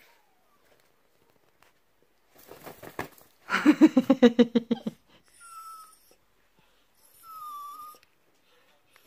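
Poodle grumbling: a loud, rapidly pulsing growl-like vocalisation lasting over a second near the middle, followed by two short high whines.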